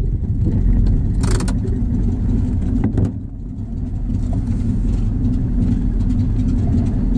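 Vehicle engine idling steadily, with a short hiss about a second in and a sharp click about three seconds in.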